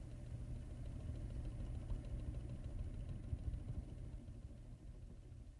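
A faint, uneven low rumble, like a vehicle engine or distant traffic, fading away near the end.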